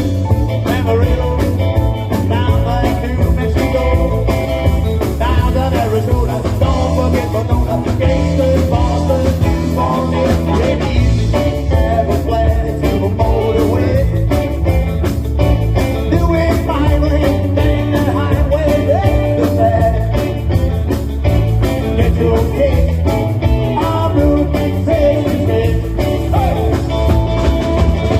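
Rock and roll band playing live, with electric guitar, bass, drums and a singing voice.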